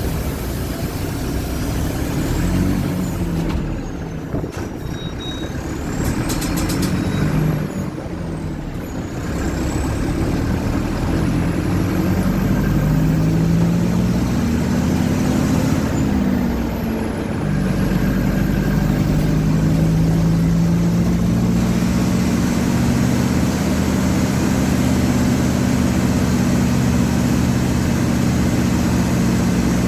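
Mercedes-Benz OF-1722M city bus's diesel engine pulling under load, its pitch climbing, dropping at a gear change and climbing again. A thin high whistle rises and falls above it in the first half. The engine note holds loud and steady through the last third.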